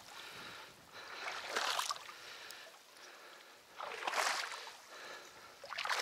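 Bare feet wading through shallow river water: a splashing slosh with each slow stride, three strides about two seconds apart.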